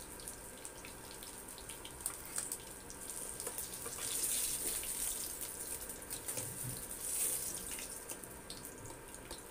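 Hot oil sizzling and crackling in a kadai around pieces of fried katla fish as they are lifted out with a metal spatula. The sizzle swells about four seconds in and again about seven seconds in.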